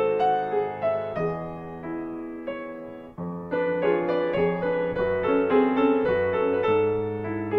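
Background piano music, slow notes and chords. It drops away briefly about three seconds in, then returns fuller and busier.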